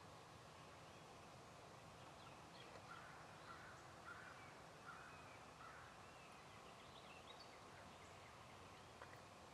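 Faint outdoor quiet with a bird calling five times in a row, about two-thirds of a second apart, through the middle of the stretch, and thin, high songbird chirps scattered around it.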